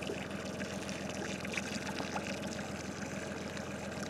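Water lapping and trickling against a boat's hull over a steady low hum, with a few faint clicks.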